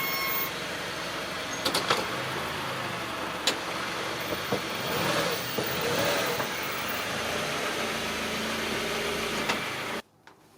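2004 Honda CR-V in motion: steady road and running noise with scattered clicks. A steady high squeal with overtones stops about half a second in. The sound cuts off abruptly near the end.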